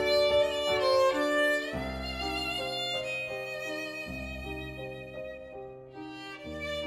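Instrumental background music: a violin playing a slow melody of long held notes over low sustained accompaniment, growing softer for a moment about six seconds in.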